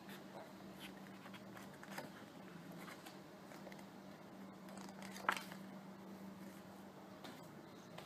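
Faint handling of a CD album's paper lyric booklet and packaging: light rustles and small clicks, one sharper click about five seconds in, over a steady low hum.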